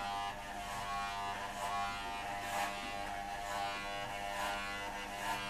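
Corded electric hair clippers running with a steady hum while being passed through the hair on top of the head.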